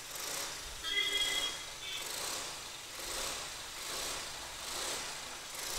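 A Hero Maestro scooter's freshly rebuilt single-cylinder four-stroke engine is started on the electric starter with a short burst about a second in. It then catches and idles, its level rising and falling gently about once a second.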